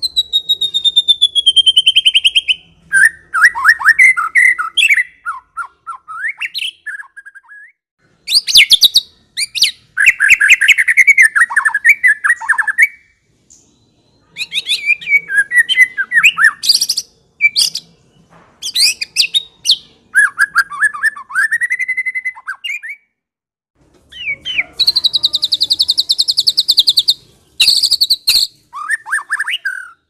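White-rumped shama (murai batu) singing its loud, varied song in separate phrases: a long falling whistle at the start, fast chattering and warbling runs, and a long high buzzy trill near the end, with short pauses between phrases.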